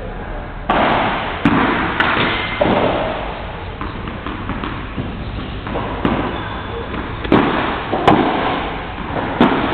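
Padel rally: the ball struck by the rackets and bouncing on the court, a series of sharp hits a second or less apart with a lull in the middle.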